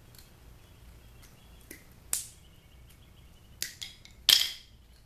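Side cutters snipping the thin wires of an AC adapter's transformer: a few sharp snaps, the loudest about four seconds in.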